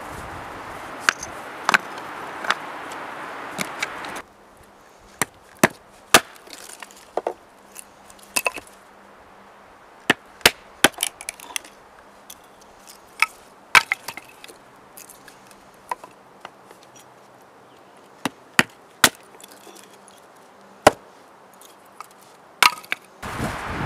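A few stones clacking together as they are set into a fire ring. Then a hatchet chopping a piece of wood on a stump chopping block: a long run of sharp, irregular strikes, roughly one a second.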